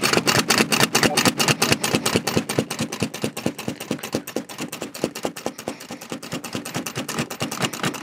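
Seat belt tongue being latched into and released from its buckle over and over in quick succession, a rapid run of clicks several a second. This is the repeated buckle–unbuckle sequence, done with the car in accessory mode, that disables the Subaru's seat belt reminder chime.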